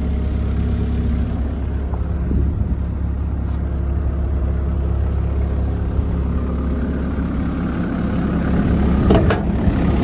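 Komatsu PC160LC-7 excavator's diesel engine idling with a steady low hum. A brief sharp sound comes near the end.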